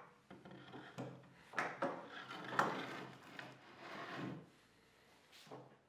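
Plywood board and steel bar clamps being handled against a wooden workbench: wood rubbing and sliding, with several irregular knocks and scrapes.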